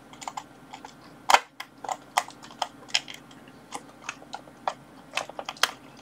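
Irregular small clicks and light knocks of a component's leads and hookup wires being worked into the spring terminals of an electronics project kit board, with one louder click about a second in.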